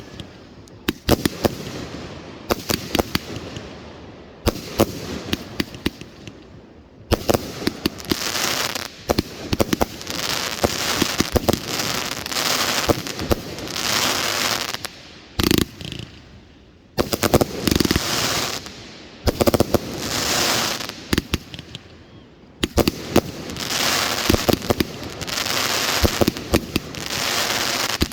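A fireworks display: aerial shells bursting with sharp bangs, and dense crackling volleys that come in waves.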